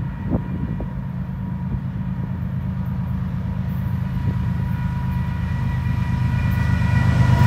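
Diesel freight locomotives approaching, a low engine rumble growing steadily louder, with a faint steady high tone above it.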